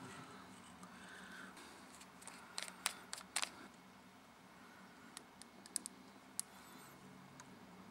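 Small metal parts of a rebuildable tank atomizer being handled and opened at the base: a cluster of sharp clicks between about two and a half and three and a half seconds in, then a few fainter ticks around five to six seconds, over quiet room tone.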